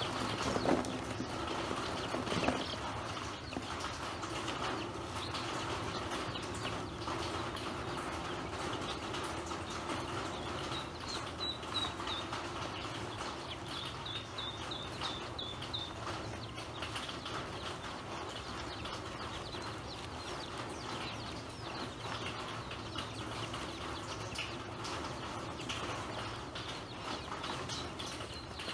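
Ducklings pecking grain from a plastic basin: a dense, steady patter of bills tapping and scraping on the plastic, with two louder knocks in the first few seconds. A few short, high chirps come near the middle.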